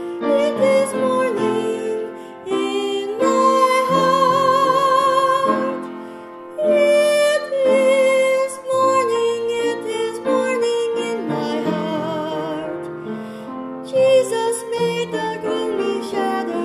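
A woman singing a slow gospel song with vibrato, long held notes over piano accompaniment.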